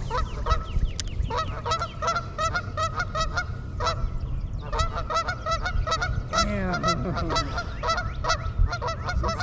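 Geese honking over and over, several calls a second, with a low rumble underneath.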